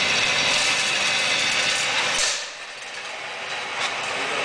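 An indoor shooting range's motorized target carrier runs along its track, bringing the paper target back to the booth with a steady mechanical whir. The whir stops with a short knock about two seconds in, and a fainter steady noise continues after it.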